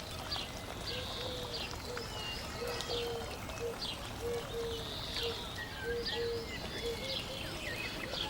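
Birds chirping and calling, with a run of short repeated low notes and quick high chirps, over a steady hiss.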